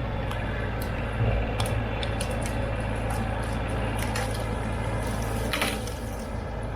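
Side-by-side utility buggy moving over rough ground: a steady low motor hum with scattered crunches and clicks.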